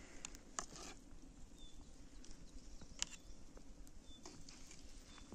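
Faint outdoor ambience: a low steady rumble with two sharp clicks, about half a second and three seconds in, and short high chirps every second or so.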